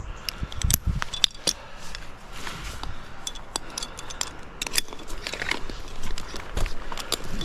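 Gusty wind rumbling on the microphone, with scattered sharp clicks and knocks throughout.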